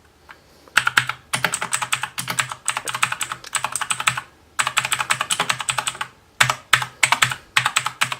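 Fast typing on an Aukey mechanical keyboard with clicky blue switches: dense runs of sharp key clicks in bursts, starting about a second in, with brief pauses between runs.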